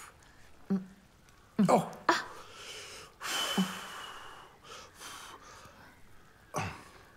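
A man tasting food off his fingers: short hummed murmurs, and a hissing slurp of air drawn in through the lips about three seconds in, with breathy exhales between.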